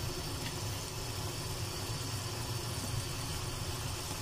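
Onions frying in oil in a karai, a constant sizzle with a low hum underneath.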